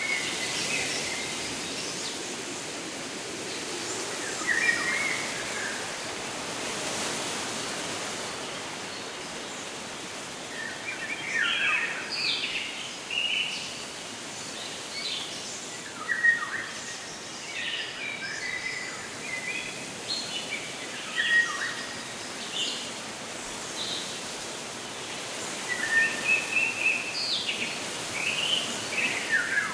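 Small birds chirping and calling in short scattered phrases, sparse at first and more frequent from about eleven seconds in, over a steady outdoor background hiss.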